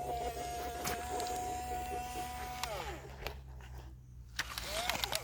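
Small electric motor of an RC excavator whining steadily, then winding down with a falling pitch a little past halfway; after a short lull with a few light clicks, it whirs up and down again briefly near the end.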